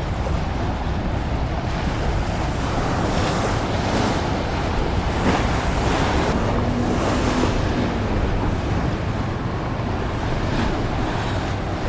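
Wind buffeting the microphone over a steady low rumble, with a wash of waves that swells in the middle.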